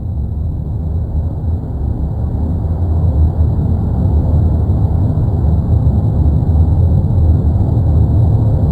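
Deep, continuous rumble of the erupting La Palma volcano, growing gradually louder.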